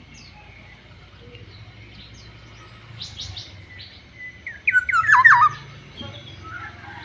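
Black-naped oriole (kepodang) calling: a few short, harsh notes about three seconds in, then one loud, fluty phrase of swooping whistled notes about five seconds in.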